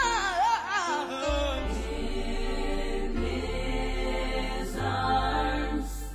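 Music with singing over a low bass line that changes note every second or two, fading down near the end.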